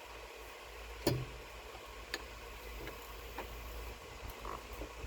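A few sharp, light clicks and taps about a second apart, the loudest about a second in: a 7 mm hand tool working on a hose clamp in a car's engine bay.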